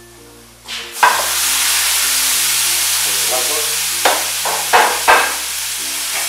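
White wine poured into a hot pan of browned base dusted with flour: a loud sizzle starts suddenly about a second in and then holds steady. A few short knocks of a utensil stirring the pan come near the end.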